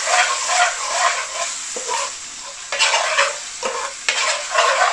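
Onions and tomato puree sizzling in an aluminium pan while a metal spoon stirs and scrapes through them in repeated strokes.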